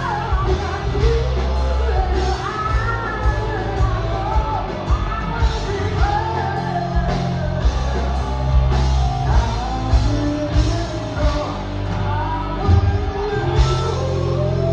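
A rock band playing live, with a lead vocal singing a wavering melody over sustained bass, guitar and regular drum hits.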